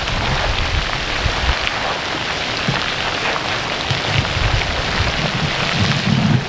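Wind buffeting the microphone in uneven low gusts, over a steady rain-like hiss with many faint crackles.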